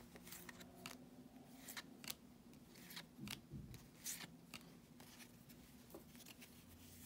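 Faint, irregular soft flicks and swishes of 2019 Topps baseball cards being slid one at a time from the front to the back of a hand-held stack.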